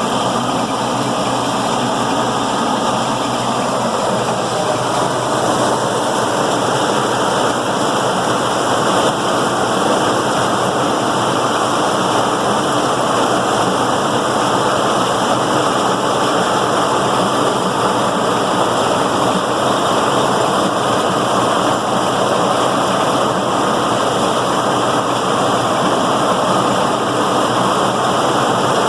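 John Deere 6400 tractor running steadily while pulling a working New Idea corn picker: a loud, even, dense mechanical noise with no breaks.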